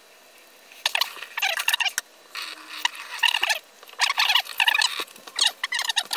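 Bursts of squeaky, wet rubbing, each lasting about a second, starting about a second in and repeating several times.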